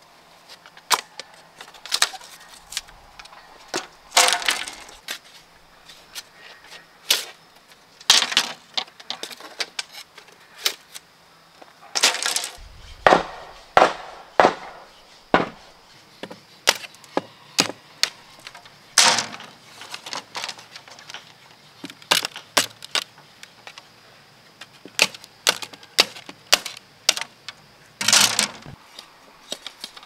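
Machete chopping and splitting green bamboo poles: irregular sharp strikes, some in quick runs, with the cracking of the bamboo as it splits.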